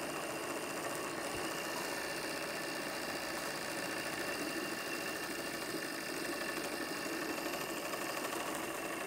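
A 32 mm gauge live steam model locomotive running light on a stand, its wheels turning freely: a steady, fast mechanical chatter of the cylinders and valve gear with hissing steam. It is the engine's first run under its own steam, and the exhaust is still wet.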